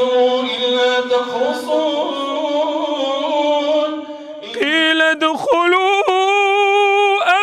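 A man chanting Quran recitation in long, melodic held notes, in a thin, dull recording. About four and a half seconds in, it cuts to a clearer, fuller recording of another man reciting in the same melodic style, his held notes wavering.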